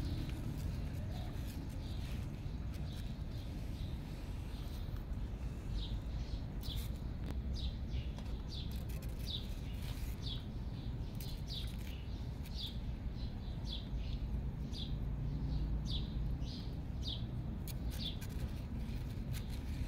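A small bird chirping over and over: short, high, falling chirps about two a second, starting about six seconds in, over a steady low background rumble.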